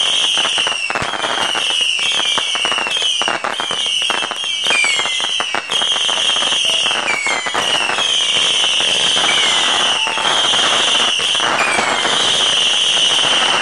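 Saturn missile firework batteries, 1480 shots wired together, firing in a continuous volley: one whistling shot after another, each whistle falling slightly in pitch and overlapping the next, over a steady crackle of small pops.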